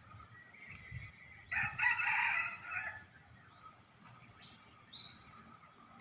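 A rooster crows once, about a second and a half in, the call lasting over a second. A few short high bird chirps follow later, over a steady high-pitched background hiss.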